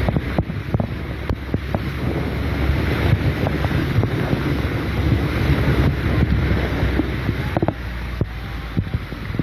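Hurricane-force wind and rain heard from a moving car, a loud steady rush with heavy wind buffeting on the microphone and scattered sharp taps.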